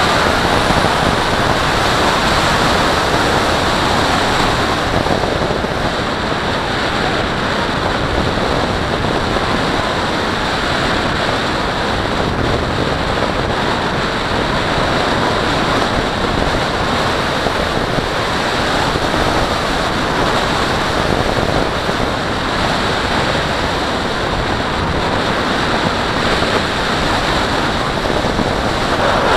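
Steady rush of airflow over the onboard camera's microphone on a 4.5 m Valenta Salto H101 radio-controlled glider in flight. It swells and eases slightly, with no motor heard.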